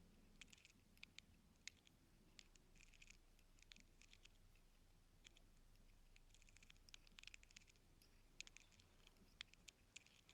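Faint, irregular scratching and clicking of an ear-cleaning tool working inside the ear canal, picked up close to the ear, with a few sharper ticks among short rustling scrapes.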